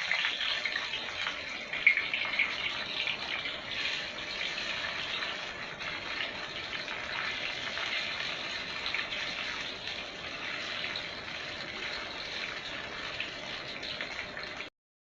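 Fish frying in hot oil: a steady sizzling hiss dotted with small pops and crackles, one sharper pop about two seconds in. It cuts off abruptly just before the end.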